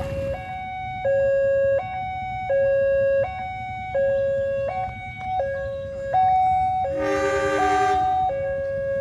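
Railway level-crossing warning alarm sounding as the barrier is down: two steady electronic tones, one low and one higher, taking turns a little under a second each, signalling that a train is coming. A horn sounds briefly about seven seconds in.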